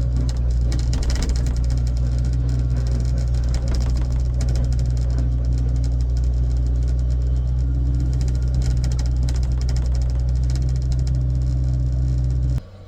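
Heavy equipment engine running steadily at a constant speed with a deep, even drone. It starts and stops abruptly.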